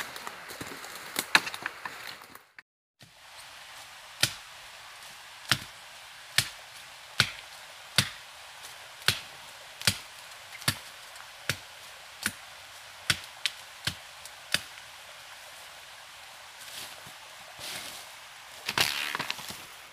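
Blade chopping into brush and wood: about a dozen sharp strikes at roughly one a second, followed by a louder clatter near the end.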